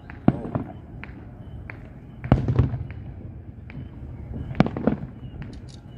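Aerial fireworks shells bursting: several sharp booms a second or two apart, the loudest about two and a half seconds in, with smaller pops between them.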